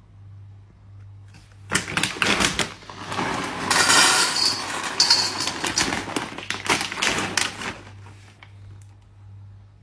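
Dry dog kibble poured from a bag into a stainless steel bowl: a dense rattling clatter of pellets hitting the metal and each other. It starts about two seconds in and stops about eight seconds in.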